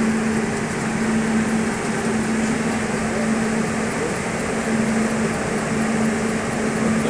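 Cooling fans of a General Electric SG 200 kVA UPS running steadily, a rushing air noise with an even electrical hum underneath.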